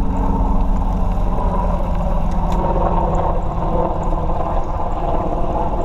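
Steady rumble of wind buffeting the microphone of a camera on a moving bicycle riding along a paved trail.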